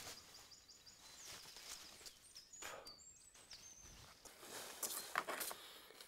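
Quiet outdoor ambience with short, high bird chirps in the first few seconds, then rustling and handling noise that is loudest about five seconds in.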